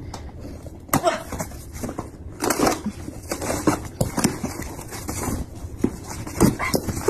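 A taped cardboard parcel being torn open by hand: irregular tearing, scraping and rustling of cardboard, tape and packaging, with a few sharp clicks.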